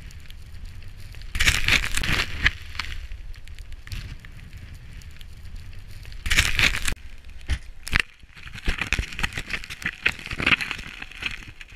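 Rustling, crackling handling noise from clothing and gear close to the microphone, loudest in two bursts, one early and one about halfway. Wind rumbles on the microphone until about two-thirds of the way through, then stops.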